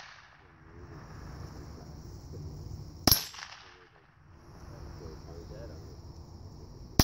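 .22 gunshots: one sharp shot about three seconds in and another at the very end, each trailing off briefly.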